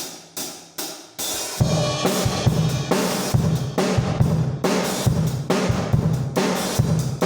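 Drum kit music: a few sharp hits with ringing cymbals, then a steady beat of bass drum, snare and hi-hat from about a second and a half in.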